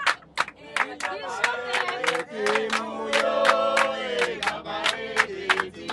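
A group of people singing together with steady, rhythmic hand-clapping, several voices holding and sliding between notes over the claps.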